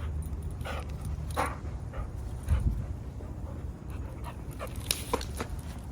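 Dogs panting at play, with a few short, sharp sounds scattered through.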